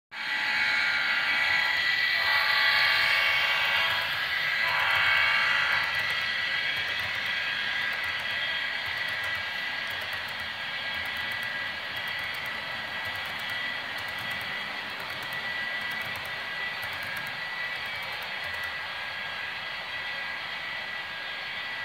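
Model freight train with diesel locomotives running on layout track, giving a steady running noise and a thin whine. A pitched horn-like tone sounds through the first six seconds, broken twice.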